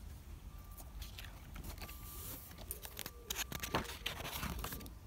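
Pages of a spiral-bound paper notebook being handled and turned: a run of crisp paper rustles and small clicks.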